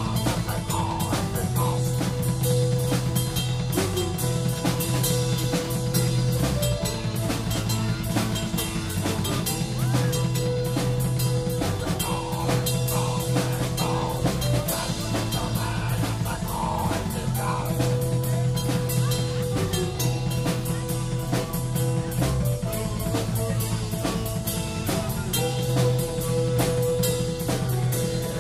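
A dark folk band playing live, with acoustic guitar and a drum kit beating fast and densely under held notes and a moving bass line.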